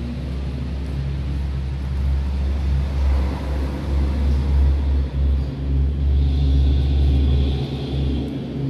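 Steady low rumble of a running motor, with a faint hum riding above it and small rises and falls in level.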